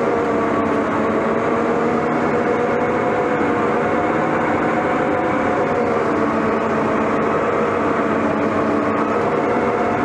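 Case 1150M crawler dozer's diesel engine running steadily under load as the blade pushes dirt, heard from inside the cab.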